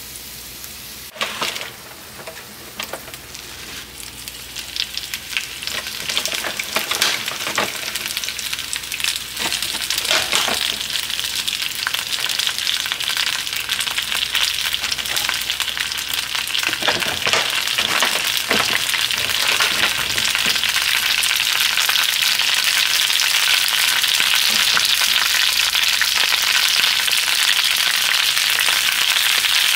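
Food frying in a hot pan: a steady crackling sizzle that grows louder, with a few short knocks or scrapes along the way.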